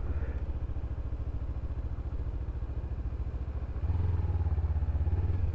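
Kawasaki Ninja 300 parallel-twin engine running at low revs on light throttle, with a steady low firing pulse that gets a little louder about four seconds in.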